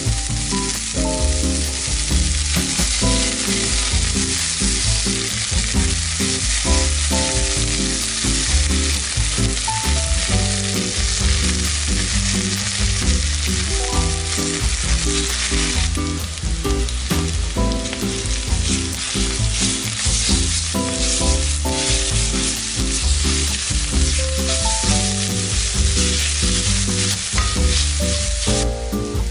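Sliced onions sizzling in hot vegetable oil in a stainless steel pan while being stirred with a spatula. The sizzle gets louder about halfway through.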